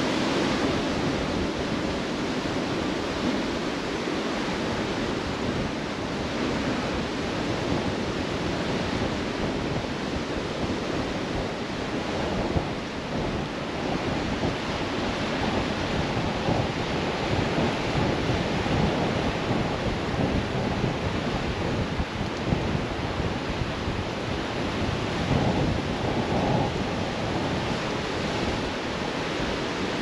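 Steady wash of sea surf breaking on a rocky shore, with wind buffeting the microphone.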